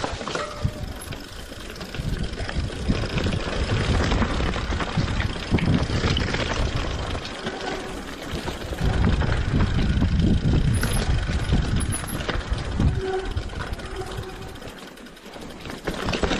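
Wind buffeting and rumble on a handlebar-mounted camera as a mountain bike rolls down a rough dirt trail, with rattles and knocks from the bike jolting over bumps.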